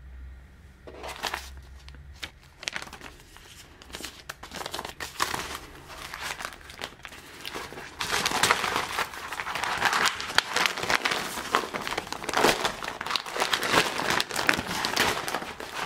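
Plastic sheeting of an IKEA PÄRKLA zippered storage case crinkling and crackling as it is unfolded and handled, with irregular sharp crackles that grow louder and busier about halfway through.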